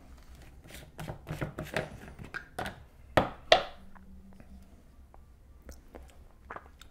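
Short plastic clicks and knocks of a personal blender cup being handled as its blade base is twisted off, with two sharper knocks about three seconds in. After that only a few faint ticks.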